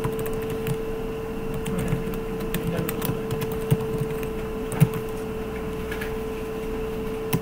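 Computer keyboard keystrokes: irregular typing clicks over a steady hum.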